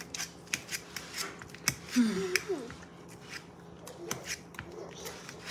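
Irregular sharp clicks and snips of objects being handled, with a short voice-like sound about two seconds in.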